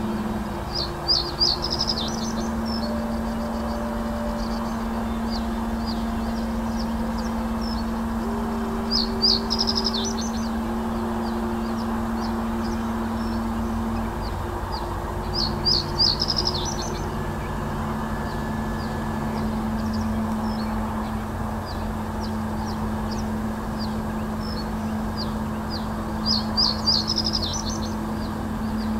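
Male common reed bunting singing its short, simple song phrase four times, several seconds apart, with faint scattered high ticks between, over a steady low hum.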